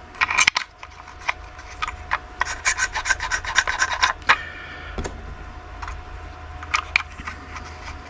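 Small parts being handled and fitted by hand: scattered clicks and taps, with a run of rapid scraping clicks about halfway through.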